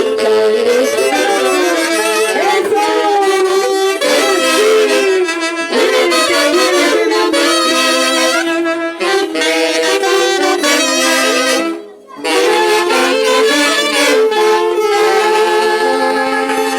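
Wind orchestra music: saxophones and brass playing a melody together in sustained notes, with a brief break about twelve seconds in.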